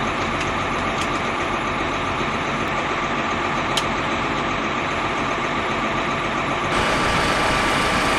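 An engine running steadily. Near the end it steps up, slightly louder and brighter, and holds there.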